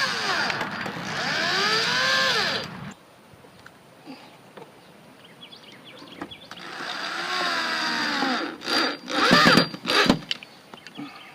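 Power drill driving screws to fasten trim down, its motor whine rising and falling in pitch with the trigger: one run stopping about three seconds in, another starting about six seconds in, followed by several sharp knocks near the end.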